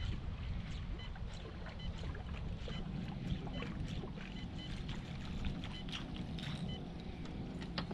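Fishing boat at rest on the water: water lapping and ticking against the hull over a low, steady rumble.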